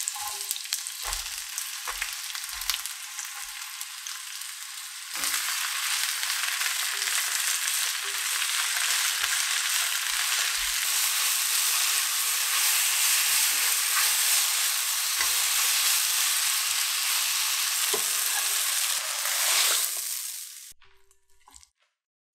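Sliced onion, wood ear and shiitake mushrooms sizzling in hot oil in a nonstick wok, stirred with a spatula with a few light knocks. The sizzle grows louder about five seconds in and cuts off near the end.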